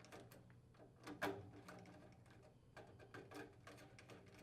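Faint, irregular clicks and light taps of a screwdriver loosening the thermostat-wire terminal screws on a furnace control board and the wires being handled, with a sharper tap about a second in.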